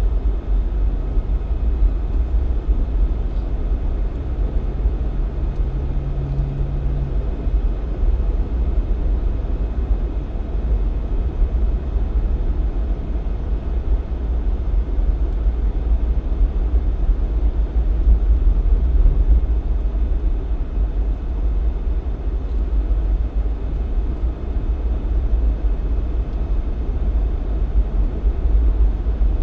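Jeep Cherokee XJ driving, a steady low rumble of engine and tyres on the road, with a faint hum in the first seven seconds or so.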